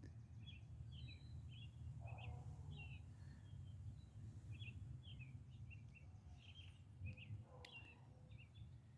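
Faint birdsong: small birds chirping in short, quick calls throughout, over a low steady rumble.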